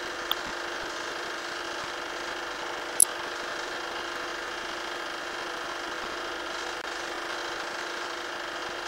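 Film projector running with a steady mechanical whir, with a small click near the start and a sharper, louder click about three seconds in.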